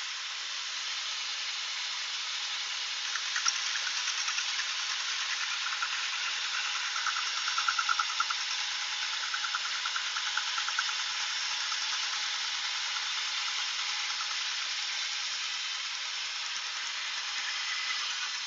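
Shopsmith bandsaw running and cutting a board along a marked line: a steady hiss of the machine, with a rougher rasp of the blade in the wood most audible from about three to eleven seconds in.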